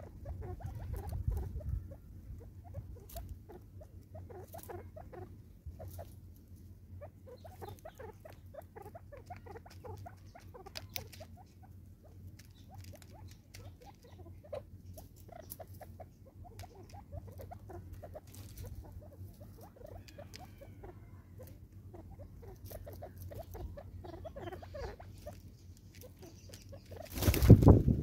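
Spurfowl pecking seed from a plastic bottle feeder: many quick, irregular taps and clicks. About a second before the end comes a loud flurry of wingbeats as a bird flies up.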